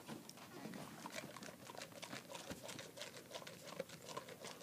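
Golden retriever eating kibble: a quick, even run of small crunches and clicks, several a second.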